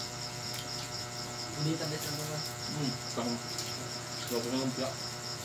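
Crickets chirping in a steady, evenly repeating high pulse, about four to five chirps a second.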